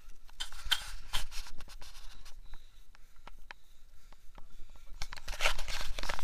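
Handling noise on an action camera: scraping and crunching rubs against the microphone in two bursts, about half a second in and again about five seconds in, with scattered sharp clicks between them.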